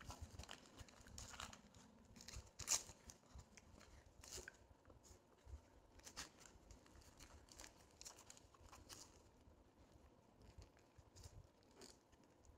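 Paper wrapper around a chicken shawarma roll crinkling and tearing as it is peeled back by hand, in scattered short crackles, the loudest about two and a half seconds in.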